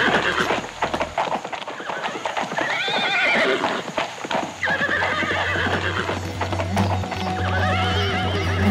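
Horses neighing three times over a clatter of galloping hoofbeats, a soundtrack sound effect. A low musical drone comes in about halfway and swells toward the end.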